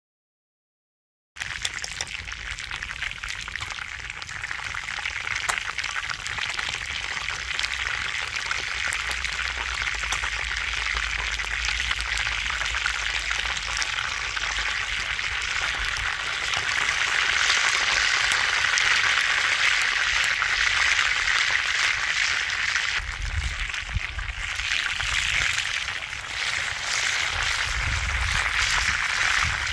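Chicken leg quarters frying in hot oil in a grill pan: a steady sizzle that starts suddenly about a second and a half in, with a low rumble in the last few seconds.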